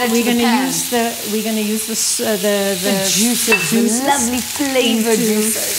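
Marinated chicken breasts sizzling as they brown in a hot frying pan, a steady crackle, with a woman's voice talking over it.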